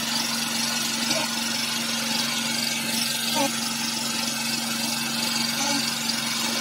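A small engine running steadily with an even hum.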